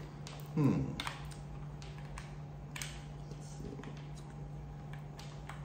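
Light plastic clicks and ticks as a USB cable is threaded through the slots of a plastic charging dock and handled. About half a second in comes a louder short sound that drops quickly in pitch. A steady low hum runs underneath.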